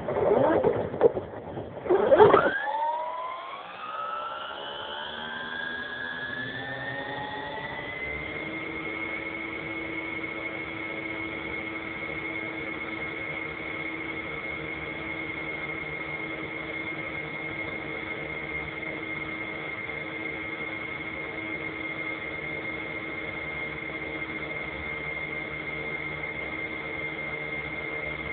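Motor of an FPV model aircraft spinning up: after a couple of loud bursts at the start, a whine rises smoothly in pitch for about five seconds, then holds as a steady high whine.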